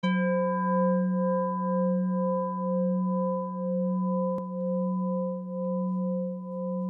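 A singing bowl struck once, its low tone ringing on with an even pulsing waver while the higher overtones fade within the first second or two.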